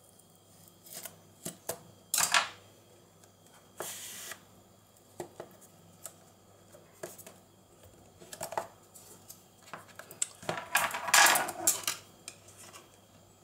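A cardboard smartwatch box and its paper sleeve handled and slid open by hand: scattered taps and scrapes, with a louder rustling scrape about two seconds in and a longer one near the end.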